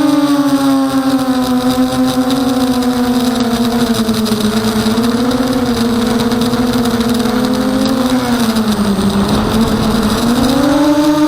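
Emax 250 Nighthawk racing quadcopter's brushless motors and propellers in flight, a loud steady buzzing whine whose pitch wavers with the throttle, dipping about two-thirds of the way through and climbing again near the end.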